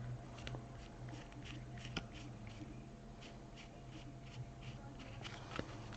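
Faint rustling and light irregular clicks of baseball trading cards and pack wrappers being handled, over a steady low hum.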